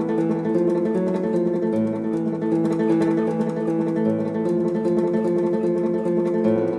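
Background music: acoustic guitar picked note by note, with a low bass note about every two seconds.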